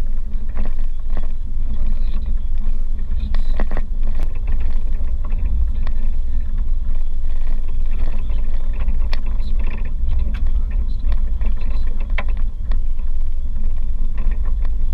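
A car driving on a gravel road, heard from inside the cabin: a steady low rumble of tyres and engine, broken by scattered short knocks and rattles.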